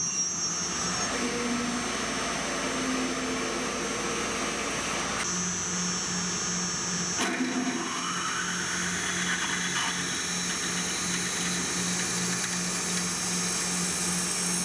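Metal lathe running with a twist drill fed from the tailstock into the spinning workpiece: first a small pilot drill, then a larger drill opening up the hole. A steady machine whine and cutting noise, changing abruptly about five seconds in, when the drilling switches to the larger drill.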